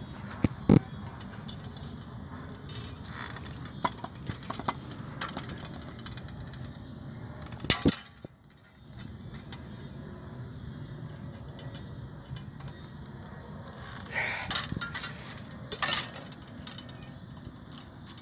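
Metal scrap parts from an ice maker being handled: scattered clinks and knocks, the loudest about eight seconds in and another group near the end, over a steady low background noise.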